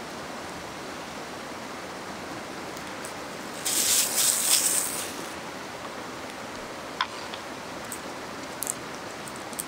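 Steady rush of a fast river beneath everything. About four seconds in comes a loud crinkling rustle lasting about a second and a half, a paper towel handled as hands are wiped. About seven seconds in there is a light knock, then a few small ticks, as the cleaver meets the wooden cutting board.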